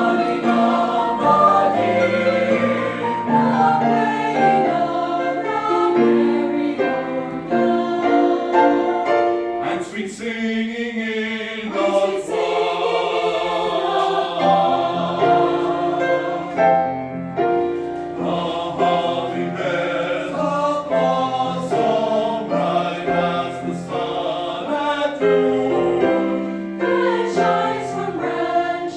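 Church chancel choir singing, many voices together, with a brief break in the phrase about ten seconds in before the singing carries on.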